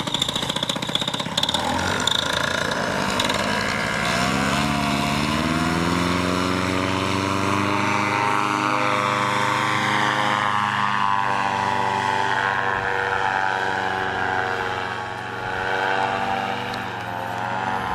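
Paramotor engine and propeller running up from a low throttle to a steady high throttle, its pitch climbing for a few seconds and then holding, with a brief dip in level near the end.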